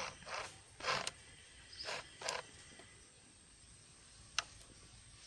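Handling noises on a plastic mini sewing machine: a few short scrapes and rubs in the first two seconds or so, then one sharp click about four seconds in.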